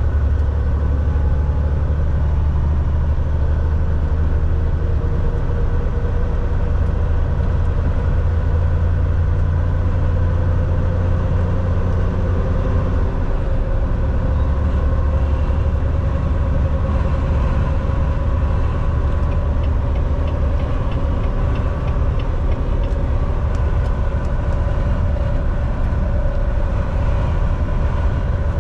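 Semi truck's diesel engine and road noise while driving down the highway: a steady low drone, with one engine tone rising slowly through the middle.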